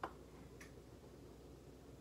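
Near silence: low room tone, with a single short click right at the start and a fainter tick about half a second later.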